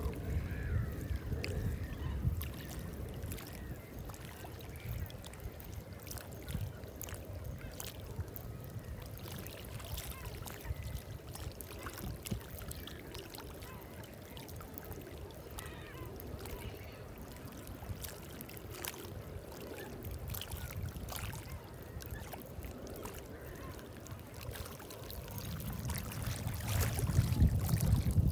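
Wind buffeting the microphone as a low rumble that eases after the first few seconds and swells again near the end, with scattered faint clicks throughout.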